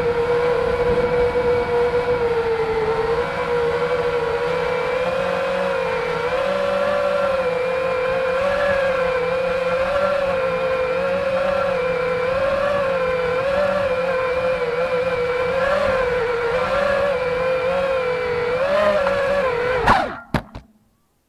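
Electric motors and propellers of an iFlight Nazgul FPV quadcopter whining, heard through the action camera mounted on it, the pitch wavering up and down with the throttle. About twenty seconds in the quad crashes: the props strike grass with a few sharp clicks and the motor sound cuts off suddenly.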